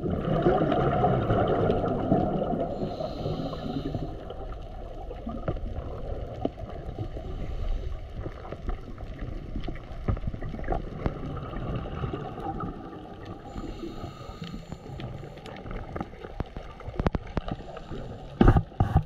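Muffled underwater sound beside a diver on a closed-circuit rebreather: a low rushing of water scattered with sharp little clicks, and a swell of bubbling gurgle over the first few seconds. A couple of loud knocks come near the end.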